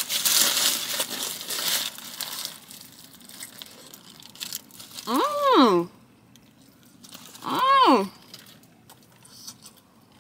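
Aluminium foil wrapper crinkling as a breakfast burrito is unwrapped, for about the first two and a half seconds. Then come two short rising-and-falling "mmm" hums of enjoyment while eating.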